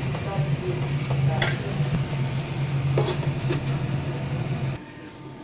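Metal spatula scraping and clinking against a metal wok as chicken with ginger and garlic is stirred, with one sharp clank about a second and a half in, over a steady low hum that cuts off near the end.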